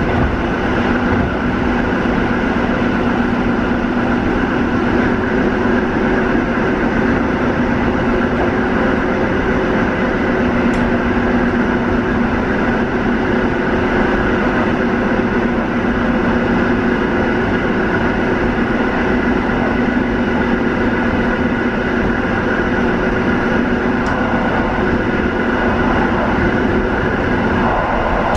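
Newag 14WE electric multiple unit running at speed, heard from inside the passenger car: a steady rumble of wheels and running gear under a hum of several held tones.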